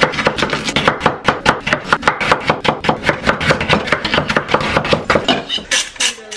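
A rapid, fairly even run of sharp taps or clicks, about seven a second.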